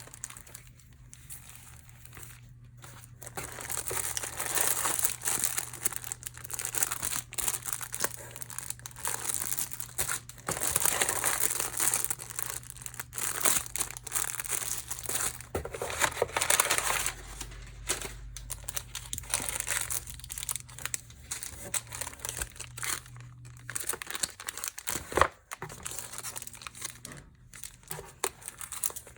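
Packaging being handled and unwrapped by hand: irregular crinkling and rustling with some tearing, starting after a few quieter seconds and easing off later, with one sharp click near the end.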